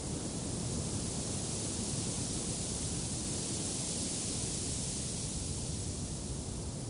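Steady wind: an even rushing hiss with a low rumble underneath, swelling slightly in the middle.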